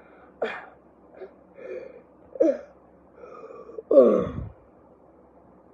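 A person's voice making a few short gasps and exclamations rather than words, ending about four seconds in with the loudest, a drawn-out cry that slides down in pitch.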